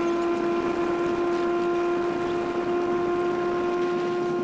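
Small Massey Ferguson tractor driving along a paved road at a steady speed, its engine and drivetrain running with a steady whine held at one pitch.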